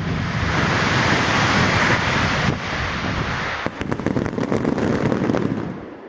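Fireworks barrage: a dense, rapid crackle of many small bursts over a steady rush. It fades away near the end.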